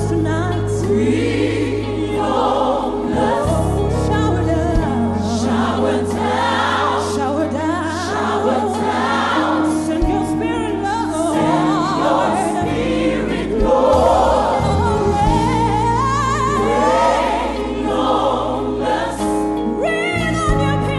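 Live gospel music: a large choir singing with a band, held bass notes under the voices.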